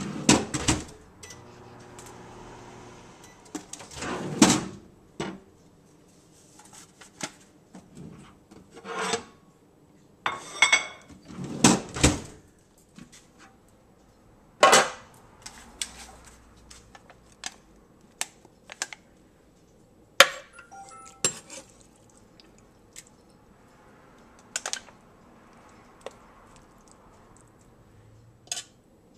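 Kitchen handling clatter: scattered knocks and clinks of a plate, utensils and a microwave drawer as a sandwich is put together, with a low hum during the first few seconds.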